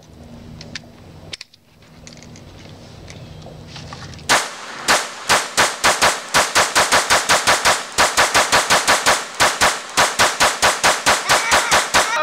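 Glock 22 pistol with a 9mm conversion barrel firing a long rapid string of shots, about three to four a second, starting about four seconds in after a few seconds of quieter sound with faint clicks.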